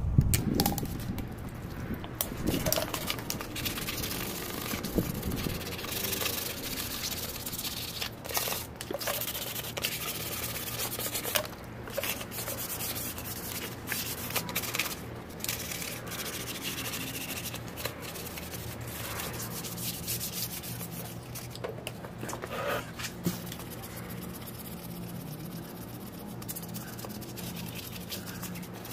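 400-grit wet sandpaper rubbed by hand over the primed surface of an alloy wheel: a continuous wet rubbing and scratching of irregular strokes.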